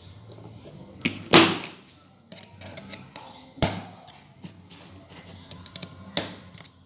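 Metal engine parts and hand tools knocking and clinking during reassembly of a motorcycle's balancer gear. There are four sharp knocks with quieter handling noise between them; the loudest comes about a second and a half in.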